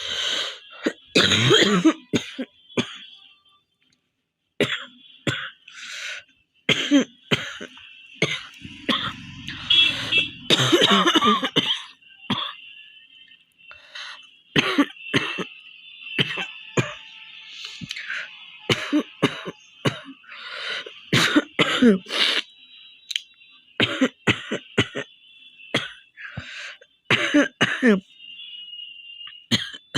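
A woman coughing over and over in short, hacking bursts, with some throat clearing: a genuine chesty cough, not a faked one. A steady high-pitched tone runs faintly behind the coughs.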